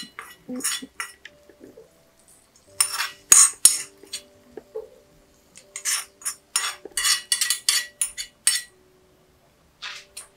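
A spoon scraping and tapping against a small pan, knocking the fried mustard-seed tempering out into the curry pot. The scrapes and clinks come in several quick bursts with short pauses between them.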